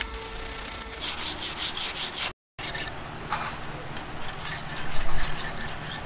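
Steel knife blade rubbed in quick back-and-forth strokes, about six a second: first with an abrasive pad, then on a whetstone being sharpened. The sound drops out briefly about two seconds in, and the strokes get louder near the end.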